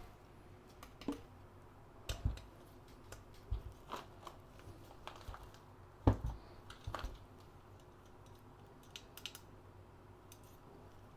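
Irregular small clicks, taps and knocks of PC hardware being handled and fitted during a small form factor build. There are two heavier thumps, one about two seconds in and one about six seconds in.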